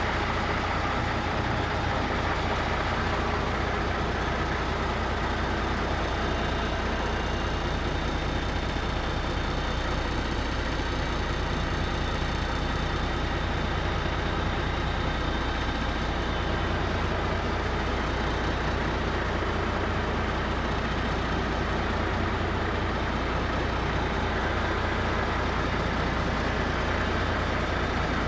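Mack CF fire engine idling steadily, a constant low engine rumble.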